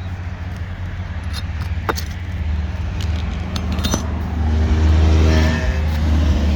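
Metal tool clicking and scraping on roofing nails and stiff, brittle asphalt shingles as nails are worked out, a few sharp clicks spread through. Underneath runs a steady low rumble, joined by a pitched hum that swells about five seconds in.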